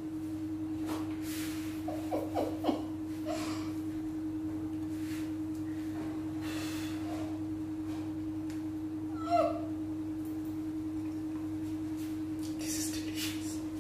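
A steady low hum with an even tone in it, under soft, scattered mouth sounds of a person chewing and breathing while eating a pancake, and a brief voiced 'mm'-like sound about nine seconds in.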